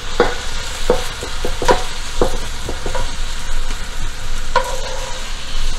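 Browned beef being scraped out of a hot frying pan into a slow cooker: a run of short knocks and scrapes of a utensil against the pan over the steady sizzle of hot oil, with one ringing clink about four and a half seconds in.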